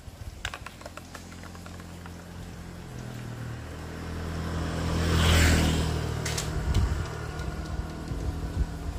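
A motor vehicle drives past close by, its engine and tyre noise swelling to a peak about five and a half seconds in and then fading away.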